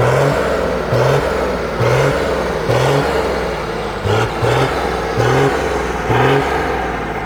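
Mercedes-Benz O-362 bus's diesel engine held running while the throttle is blipped about once a second, each blip a short rising rev, two of them close together near the middle.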